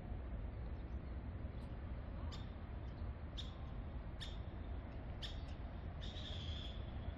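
Small birds chirping: about six short high chirps, with a longer one near the end, over a steady low outdoor rumble.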